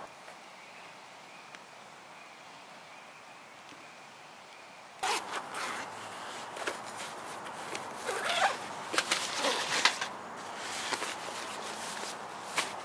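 A zipper pulled in several quick strokes, starting suddenly about five seconds in with clicks and short rising and falling runs. Before that there is only a faint steady background hiss.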